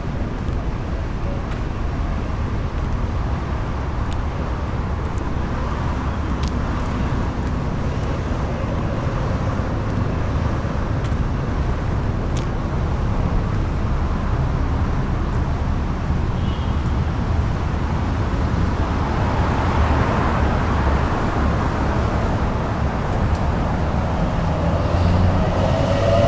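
Road traffic along a city street: a steady low rumble of engines and tyres, with a city bus moving off at the start and a vehicle passing that swells about three-quarters of the way through.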